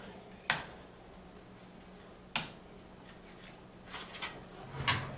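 Small computer hardware parts being handled: two sharp clicks, then a quick run of lighter clicks and taps near the end.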